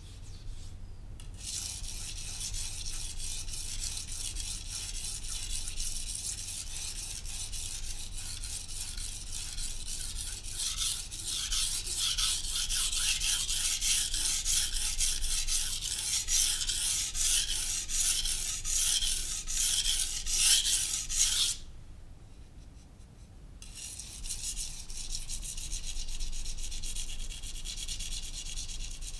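Steel knife blade (a Masamoto) scraping back and forth over a wet Naniwa Professional (Chosera) 600-grit whetstone in fast, steady sharpening strokes. The strokes grow louder about halfway through, stop for about two seconds, then start again.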